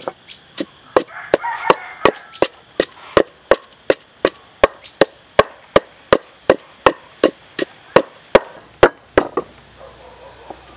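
Wooden pestle pounding a chili and herb paste in a large wooden mortar: evenly spaced knocks, a little under three a second, stopping about a second before the end.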